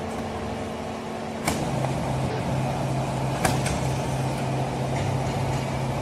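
Horizontal cardboard baler's hydraulic power unit running steadily while the finished bale is pushed out. About a second and a half in there is a click and the hum drops to a lower, stronger tone; another click comes about two seconds later.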